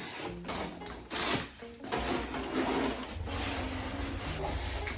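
Background music with a bass line that comes in about three seconds in, over a few short rubbing and scraping handling noises in the first two seconds.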